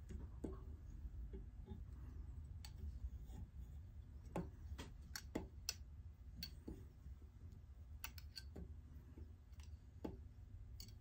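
Scattered small, irregular clicks and taps from fly-tying tools and materials being handled at the vise, over a low steady hum.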